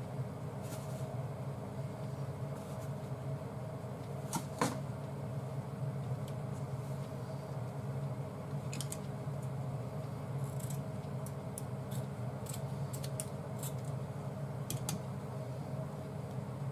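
Light crinkles and clicks of a small plastic sauce packet being torn open and handled, over a steady low background hum. A single sharper click stands out about four and a half seconds in.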